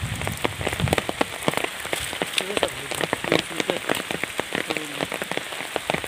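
Rain pattering steadily, a dense, irregular spatter of drops hitting a surface.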